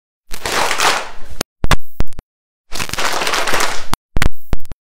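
Hand clapping in call and response: a few sharp single claps in a short rhythm, answered by a roomful of children clapping the same rhythm back as a dense patter of many hands. The exchange goes back and forth twice.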